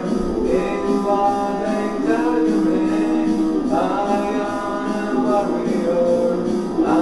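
Viking black metal from a home-recorded demo tape, with a male voice singing over the music.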